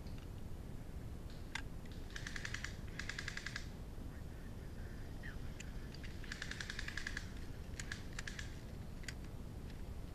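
Two bursts of rapid full-auto airsoft rifle fire, each a fast rattle of clicks lasting one to two seconds, about two seconds in and again about six seconds in, with a few single sharp cracks between.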